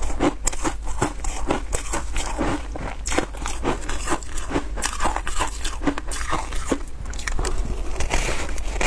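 Crunching and chewing of compressed shaved ice coated in milk powder, close to the mouth: a rapid, irregular run of crackling crunches, with a fresh bite into a block near the end.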